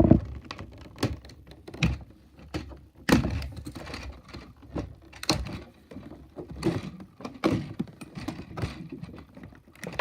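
Irregular clicks and knocks of small plastic Beyblade parts and packaging being handled and set down on a table, with a few louder knocks spread through.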